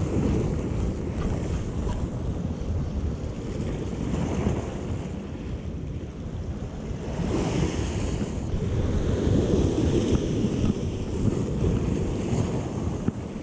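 Sea surf washing against shoreline rocks, with wind buffeting the microphone; the wash swells louder about halfway through.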